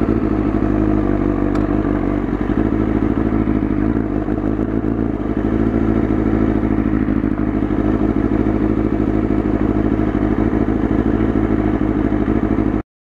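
A motorcycle engine idling steadily, cutting off suddenly near the end.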